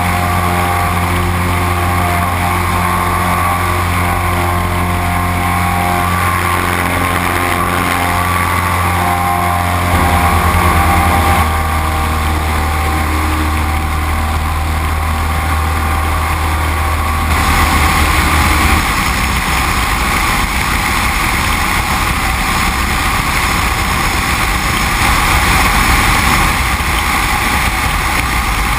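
Great Lakes 2T-1A-2 biplane's 180 hp four-cylinder Lycoming engine and propeller running steadily in flight, heard under the rush of wind past the open cockpit. The engine note shifts about ten seconds in, and about seventeen seconds in its tones fade as the wind noise grows louder.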